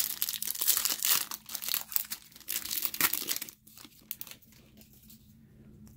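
Foil wrapper of a 2008 Upper Deck football card pack being torn open and crinkled by hand. The crackling dies down about three and a half seconds in, leaving a few light ticks as the cards come out.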